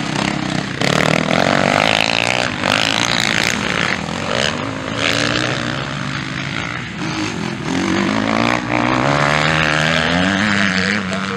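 Motocross dirt bike engines revving hard and easing off as the bikes race through a turn. The pitch climbs and drops with each throttle change.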